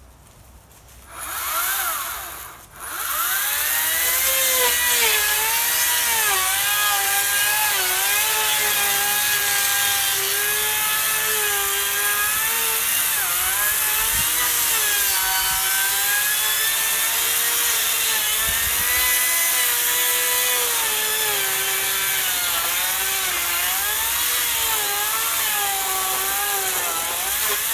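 Ryobi cordless battery chainsaw: a short spin-up about two seconds in, then a sustained cut into a log, the motor's whine dipping and rising in pitch as the chain loads up in the wood.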